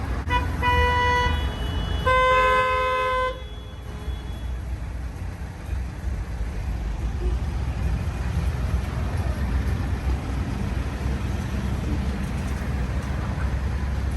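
Vehicle horn honking over steady traffic rumble: a quick tap, a short honk, then a longer, louder honk about two seconds in.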